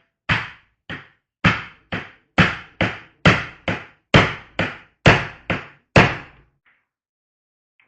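A hammer knocking on wood, thirteen sharp blows in a steady rhythm: mostly a hard blow followed by a lighter one, about a pair a second, stopping about six seconds in.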